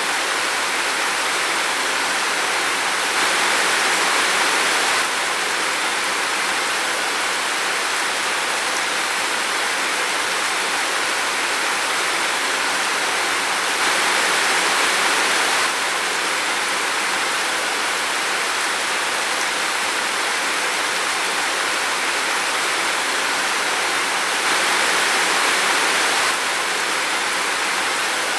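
Steady rain falling in a forest, an even hiss with a slightly louder swell lasting about two seconds three times, roughly ten seconds apart.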